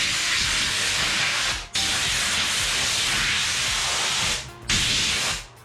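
Compressed-air blow gun hissing in long blasts, blowing sawdust out of staple holes in a wooden boat hull. The air cuts off briefly about a third of the way in and twice more near the end.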